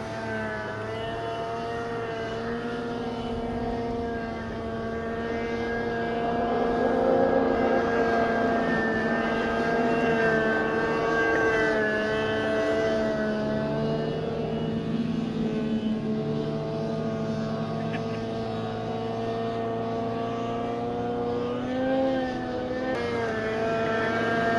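Snowmobile engine held at high revs as the sled skims across open water, a steady drone with slight rises and falls in pitch and a brief dip and rise about 22 seconds in. The throttle is kept on so the sled stays planing on the water surface.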